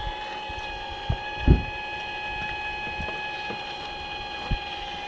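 Radio-controlled scale Liebherr 944 excavator model's electric hydraulic pump running with a steady high whine while the boom works. A few low thumps, the loudest about a second and a half in.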